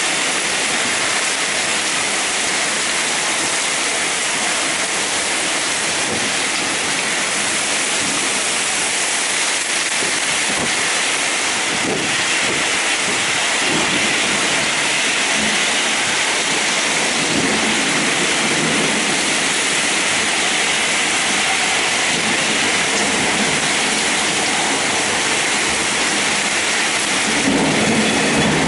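Heavy rain pouring down in a thunderstorm, a steady dense hiss. Low rumbles come and go under it in the middle, and a louder low rumble builds near the end.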